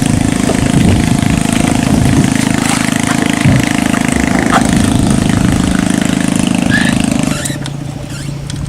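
A small engine running steadily. About seven seconds in it drops back to a lower, quieter run, as if throttled down.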